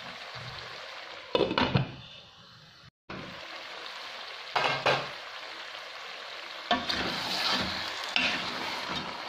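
Potatoes and fennel sizzling in oil in a pot, with a few loud knocks, then a wooden spatula scraping and knocking as it stirs them through the last few seconds.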